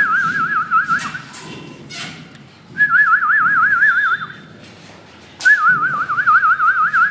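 A person whistling three times to call a cat. Each whistle is a fast-wavering warble lasting about one and a half to two seconds.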